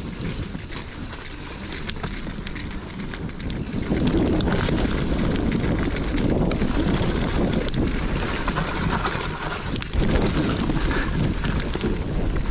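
Wind rushing over the microphone of a mountain bike's handlebar-mounted camera, mixed with the rumble and rattle of the bike rolling down a dirt trail. It gets louder about four seconds in and again near ten seconds.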